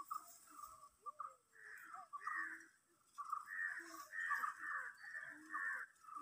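Birds giving harsh, rasping calls over and over in quick runs, with several calls overlapping.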